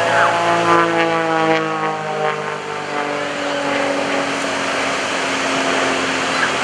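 Pitts S-1S aerobatic biplane's piston engine and propeller droning in flight, the pitch falling over the first three seconds and then holding steady and lower.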